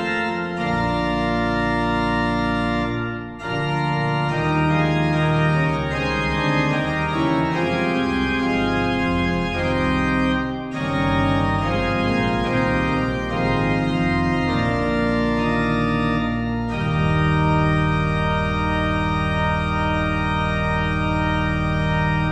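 Organ music: slow sustained chords over a deep bass, changing every second or so, with two brief breaks between phrases. It ends on one long held chord over the last five seconds.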